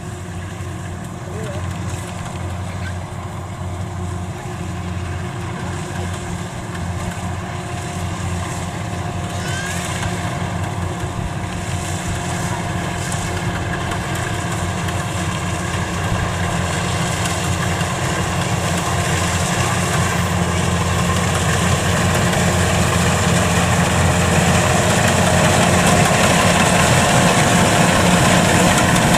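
Kubota DC93 rice combine harvester running steadily while cutting rice, its engine drone growing gradually louder.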